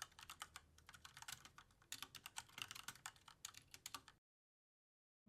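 Computer keyboard typing sound effect: a rapid, uneven run of keystroke clicks that stops about four seconds in.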